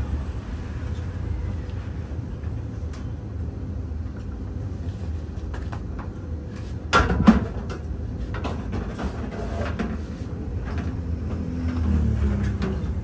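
Scattered metal knocks and clanks as a commercial clothes dryer's steel drum is handled and shifted, loudest a couple of knocks about seven seconds in, over a steady low hum.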